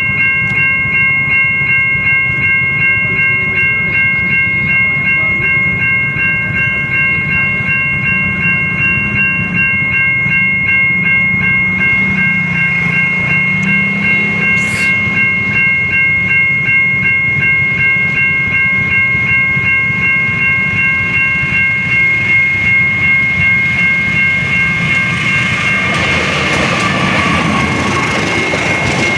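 Siemens level-crossing warning bell ringing in a fast, steady electronic repeat while a train rumbles past. Near the end, part of the bell's tone stops and a louder rushing noise of the train rises.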